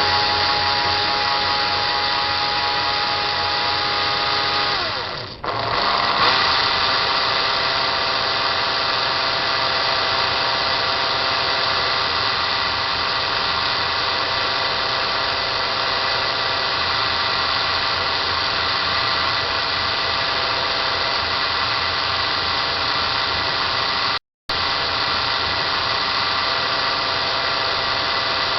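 Cordless drill running, spinning a magnetic CD-drive hub used as a bobbin winder: a steady motor whine that winds down to a stop about five seconds in, then starts straight up again and runs evenly.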